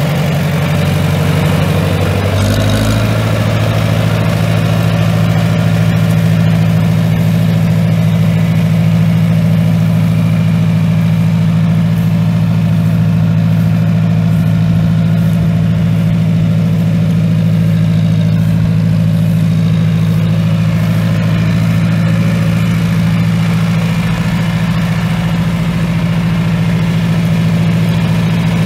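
1971 John Deere 3010's four-cylinder gasoline engine running at a steady idle. Its note changes briefly about two seconds in, then holds even.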